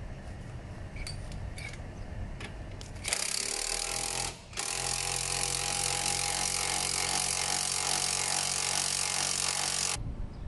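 A power tool starts about three seconds in and runs steadily for about seven seconds, with a brief break just after it starts. A few light clicks come before it.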